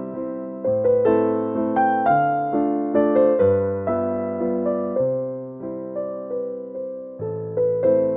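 Background piano music: a gentle melody of single notes, about two a second, each fading after it is struck, over slower bass notes.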